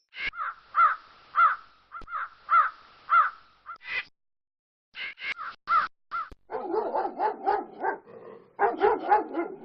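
Crows cawing: a steady series of harsh caws about every half second, then, after a short pause, a quick run of caws. From about six and a half seconds a dense run of lower, rapid barks from a Doberman pinscher.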